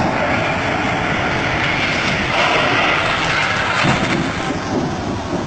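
Steady vehicle engine and rattle noise heard from inside a vehicle's cab, easing slightly near the end.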